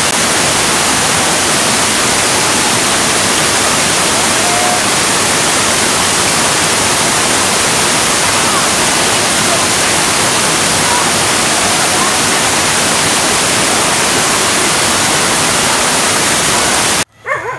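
Loud, steady rush of fast water tumbling over boulders in a rocky stream's whitewater. It cuts off abruptly near the end.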